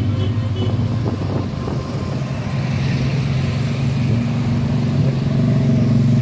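Cars and motorcycles passing slowly and close by, their engines making a steady low hum, with an engine revving up briefly about a second in.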